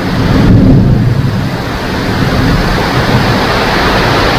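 Steady rain with a low rumble of thunder that fades away over the first two seconds.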